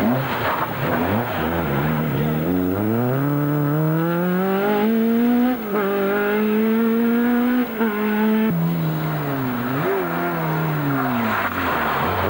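A rally car's engine accelerating hard, its pitch climbing steadily with brief dips at the gear changes. It then drops and sags as the car goes away, and near the end another rally car's engine comes in.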